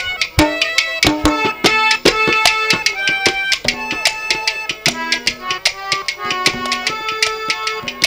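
Live Haryanvi ragni accompaniment: fast hand-drum strokes under a melody of held notes that step from one pitch to the next.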